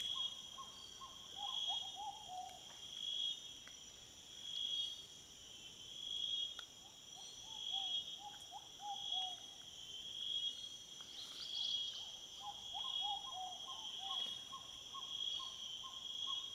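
Insects trilling in a high, steady chorus that swells about every second and a half, with a bird giving quick runs of short falling notes several times over it.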